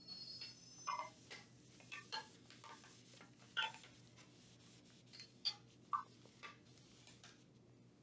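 Thin plastic weighing boat crinkling and clicking in nitrile-gloved hands as it is wiped clean with an alcohol pad: faint, irregular small clicks and crackles, a few sharper ones.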